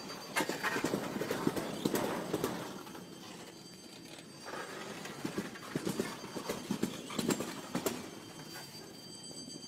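Clattering knocks in uneven clusters, busy for a couple of seconds, easing off for a moment around the middle, then busy again.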